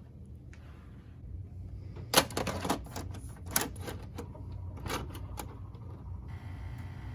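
A quick run of sharp clicks and knocks, the loudest about two seconds in, over a low steady hum.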